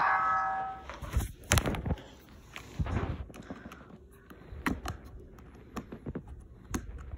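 Irregular clicks, knocks and light rustles of plastic toy parts and cardboard being handled. A held electronic musical tone cuts off within the first second.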